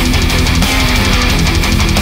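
Loud heavy metal music with electric guitar and bass guitar, playing steadily without a break.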